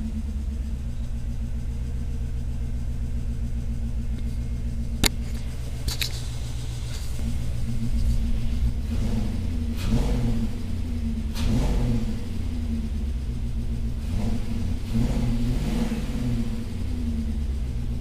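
BMW M62 V8 engine running just after starting, on its first start since the timing chain guide and valley pan gasket replacement. It idles steadily, with two sharp clicks around five and six seconds in. From about eight seconds on it is revved up and let fall back several times.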